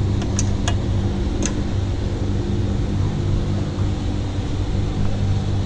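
Skid steer engine running steadily at idle, with a few light clicks in the first second and a half; the machine is overheating because its radiator is plugged up.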